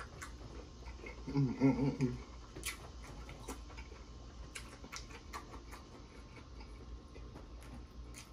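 A man's closed-mouth hum of enjoyment, a quick pulsing "mm-mm-mm" lasting under a second about a second and a half in, then faint scattered clicks and smacks of chewing close to the microphone.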